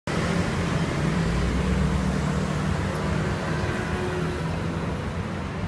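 Steady street traffic noise, with a low engine hum from passing vehicles.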